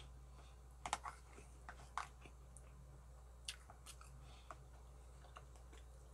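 Faint eating sounds: a scatter of soft clicks and smacks from chewing and from a wooden spoon against a steel pot, mostly in the first four seconds, over a low steady hum.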